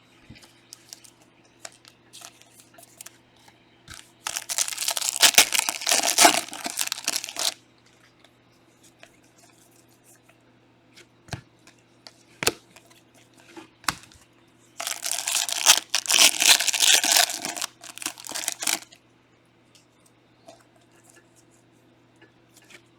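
Foil wrappers of Panini Prizm trading card packs being torn open and crinkled, in two spells of a few seconds each, with light clicks of cards being handled between them.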